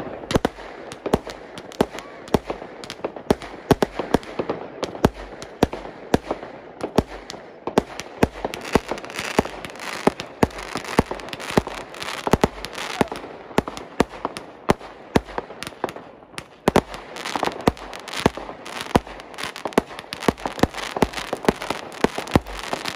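Many fireworks and firecrackers going off at once: a dense run of sharp bangs, several a second, over constant crackling.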